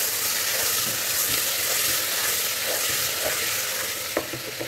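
Chopped onions and tomatoes sizzling in hot oil and ghee in an aluminium pressure cooker, stirred with a wooden spatula. One light knock of the spatula on the pot near the end.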